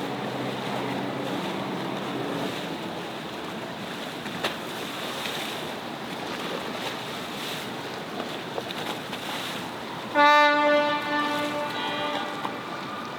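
A horn gives one loud, pitched blast about ten seconds in, lasting about a second and a half, over the steady running of a boat motor and water.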